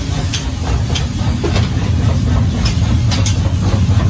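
Steady low rumble of forge workshop machinery and furnace running, with a few scattered light metallic clinks.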